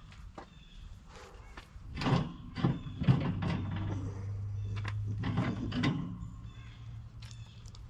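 Wire racks of an electric smoker rattling and scraping as they are slid and handled, with a run of knocks and clanks that are loudest about two to three seconds in and again around five to six seconds in. A steady low hum runs underneath.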